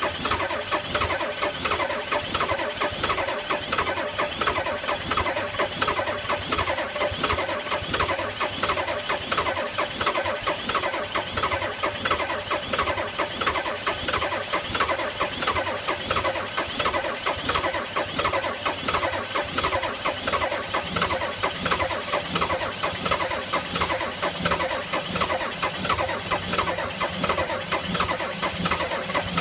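Ford 6.9 L IDI diesel being cranked over by its starter, a steady rhythmic chug that goes on without the engine catching, in −34° cold. A low steady hum joins about two-thirds of the way through.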